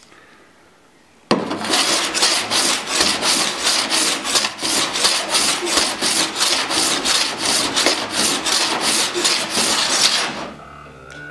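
A body file rasped back and forth across the steel panel of a Holden HQ door, about four quick strokes a second, starting about a second in and stopping near the end. The file finish shows up how the low spots have been raised.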